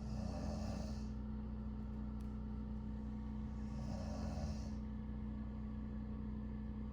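A woman snoring in her sleep, a rough rattling snore that sounds like a diesel generator. A noisy breath with the rattle comes at the start and again about four seconds in, over a steady low hum.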